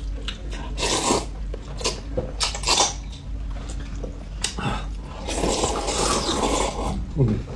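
Noodles being slurped from paper cups: a few short slurps, then a longer slurp from about five seconds in.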